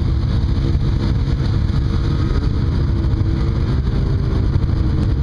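Heavy equipment engine running, its pitch rising and falling a little, under a loud low rumble of wind on the microphone.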